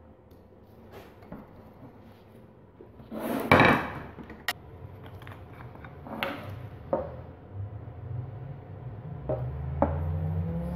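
Workshop handling sounds on a wooden bench: one loud knock about three and a half seconds in, followed by a few lighter clicks and taps of a metal oil tin being handled. A low hum builds up over the last few seconds.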